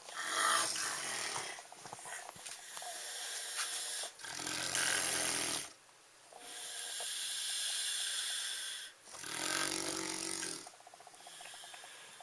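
Heavy snoring in slow breath cycles: rumbling snores twice, about five seconds apart, each alternating with a long hissing breath.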